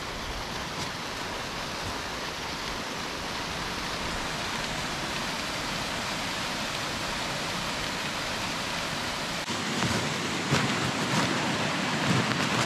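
Steady rush of a waterfall. About three-quarters through, the deepest part of the rumble drops away and a few short crunches come in over the rushing.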